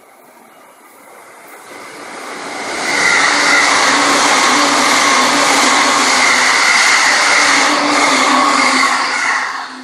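A train running past: the noise builds over the first three seconds, stays loud for about six seconds with steady tones running through it, then drops off sharply near the end.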